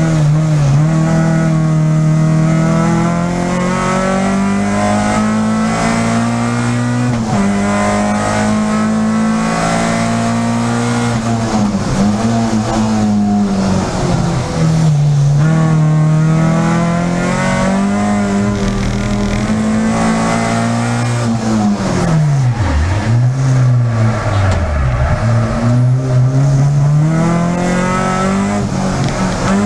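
Peugeot 306 Group A rally car engine heard from inside the cabin at racing speed, revving up through the gears, its pitch climbing and then dropping sharply at each shift. About two-thirds of the way through the pitch falls steeply twice as it slows and then picks up again.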